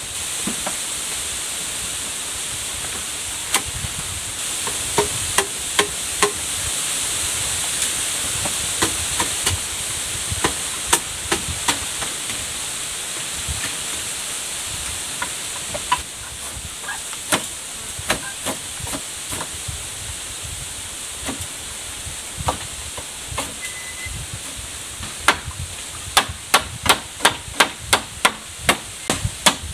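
Bamboo being worked by hand: scattered knocks and taps as poles are fitted into a wall frame, then near the end a steady run of blows, about two to three a second, of a tool striking bamboo. A steady high hiss lies underneath.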